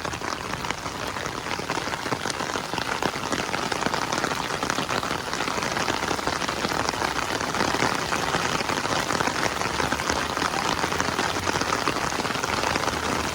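Steady rain falling, a dense patter of drops on surfaces that grows slightly louder through the stretch.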